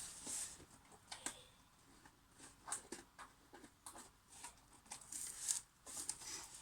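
Packaging of a box of speed cubes being handled and opened. It makes faint, scattered rustles and light clicks, a few each second.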